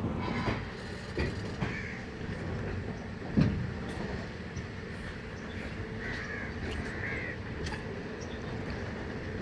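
Steady rumble of a passenger train's coach and wheels running on the track, with sharp wheel knocks over the rails, the loudest about three and a half seconds in. A crow caws a few times over it.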